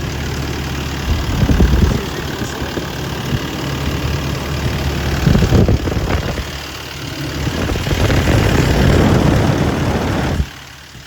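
Sany SY135C excavator's Isuzu diesel engine running. It grows louder for a moment about a second in and again around the middle, holds louder for a couple of seconds later on, and then drops off sharply near the end.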